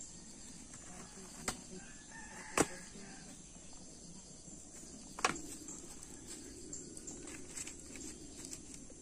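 A rooster crowing, with three sharp knocks about a second and a half, two and a half (the loudest) and five seconds in.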